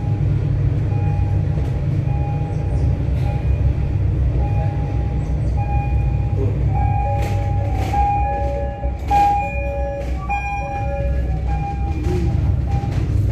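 Inside a moving aerial tramway cabin: a steady low rumble with on-and-off squealing tones at a fixed pitch, most frequent past the middle.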